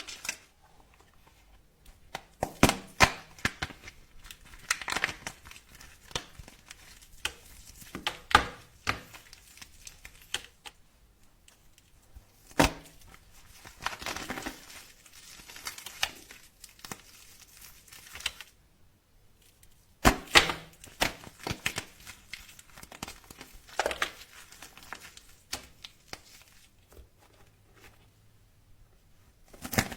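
Dry soap being cut, crackling and crumbling in irregular bursts of sharp clicks with short quiet pauses between.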